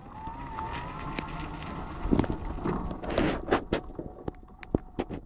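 Irregular crunching steps on an icy, snow-covered road, with a thin whine that rises in pitch over the first second and holds steady for a couple of seconds.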